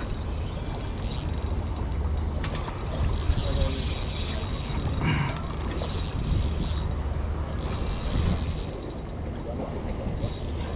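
Shimano Nasci 1000 spinning reel being cranked steadily to bring in a hooked fish, its gears and rotor whirring, over a steady low rumble.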